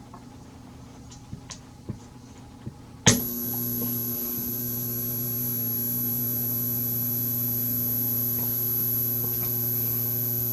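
A few small clicks, then a sharp click about three seconds in as power comes on to the PWM-driven bifilar rods of an HHO electrolysis cell. A steady electrical hum and a thin high-pitched whine then start at once and hold on.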